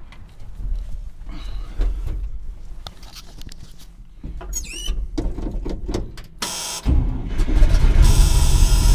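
A short high squeak about halfway through, then the 1965 Dodge D500's 318 poly V8 is started near the end and runs loudly with a low rumble and a hiss.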